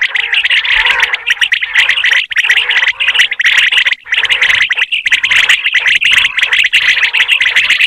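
Common quail calling: a dense, unbroken run of rapid high chirps.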